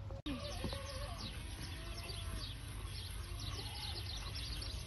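Many small birds chirping constantly: short, falling chirps overlap in a dense chatter over a steady low rumble. The sound drops out for an instant just after the start.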